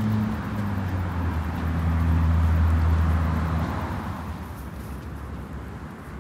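A motor vehicle's engine passing by: a low steady hum that builds to its loudest about two to three seconds in, then fades away by about four seconds.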